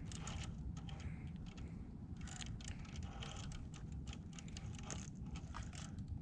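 Faint scattered clicks, ticks and scrapes of a Traxxas TRX4 RC rock crawler's tyres and chassis working slowly over rock, over a steady low rumble.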